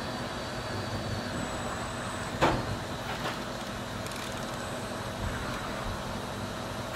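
5-axis CNC machine milling a billet crankshaft: a steady mechanical running noise with a faint high whine, and one sharp clank about two and a half seconds in.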